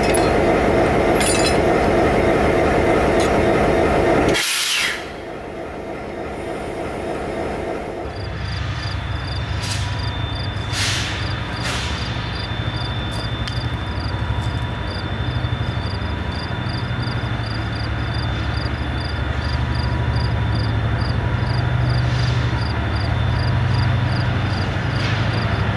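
CN diesel locomotive's engine running close by. About four and a half seconds in it cuts off suddenly, and a distant approaching diesel freight train's low, steady engine rumble follows, with faint high chirps repeating at an even pace over it.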